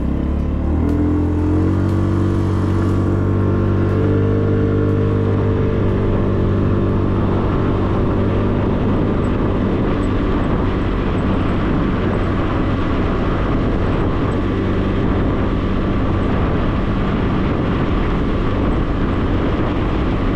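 Small motorcycle engine pulling away, its pitch rising in steps over the first few seconds, then running steadily at cruising speed with wind rush on the microphone.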